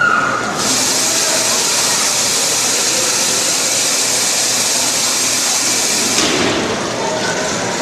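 A steady loud hiss starts about half a second in and cuts off suddenly about six seconds in; the whine of the combat robots' drive motors comes and goes faintly around it.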